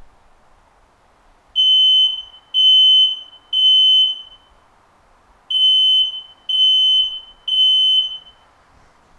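Activated smoke alarm sounding its emergency pattern: three high-pitched beeps, a pause, then three more. This three-beep pattern is the signal that the alarm has detected smoke or fire.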